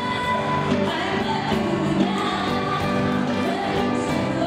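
Live band playing a Malay-rhythm (irama Melayu) song, with a woman singing over a drum kit and keyboard.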